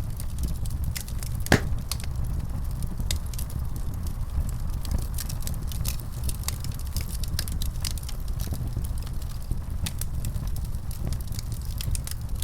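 Wood fire crackling in a fireplace: an irregular run of small snaps and pops over a steady low rumble, with one louder pop about a second and a half in.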